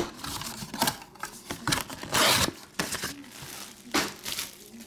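Foil trading-card pack wrappers being torn open and crinkled, in a series of short rustling bursts, the longest about two seconds in.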